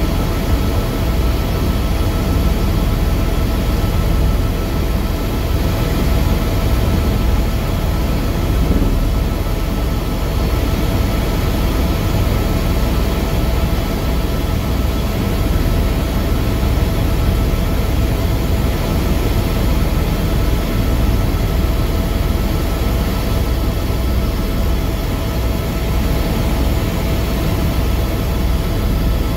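Helicopter in steady cruise heard from inside the cabin: the engine and rotor make a loud, unbroken low rumble with a faint steady whine over it.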